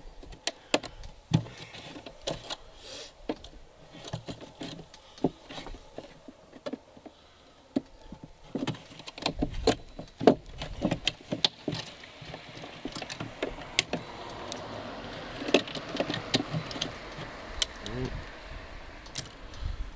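Scattered clicks, taps and rattles of hands working on the fuel tank and its cable ties inside an RC boat hull, freeing the tank. A steady hiss comes in about halfway through.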